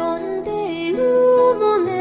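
Background music: a sung melody over a plucked-string accompaniment.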